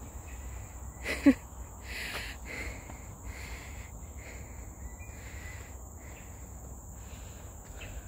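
Forest ambience: a steady high insect drone, with a bird calling over and over in short, harsh calls through the first half or so. A brief louder sound comes about a second in.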